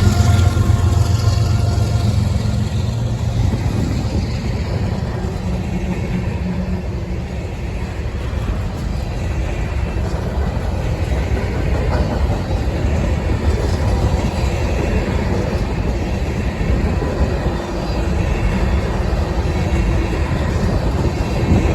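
A diesel-hauled freight train rolling past. A locomotive's low engine drone fades over the first several seconds, then a steady rumble and clatter of freight cars on the rails follows.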